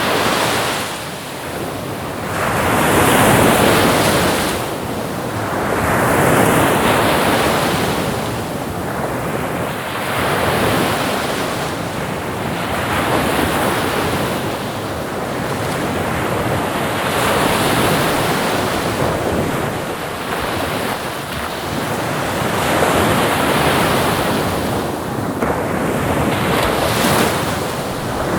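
Ocean waves breaking and washing onto a shore in a steady rhythm, each swell rising and falling about every three seconds.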